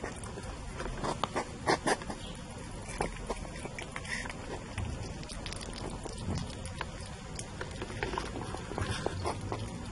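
Hedgehogs eating dog food: irregular chewing and smacking clicks, loudest about one and a half to two seconds in.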